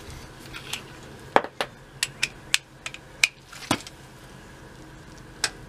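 Metal hand tools and sockets clinking against each other as they are picked up and sorted: a quick run of about eight sharp clinks, with one more near the end.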